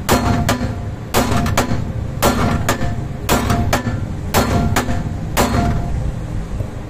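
Hammer blows on a rust-seized rear control-arm bolt, about eleven sharp metallic strikes with a brief ring after each, falling in pairs about a second apart. The bolt does not budge: it is seized in place with rust.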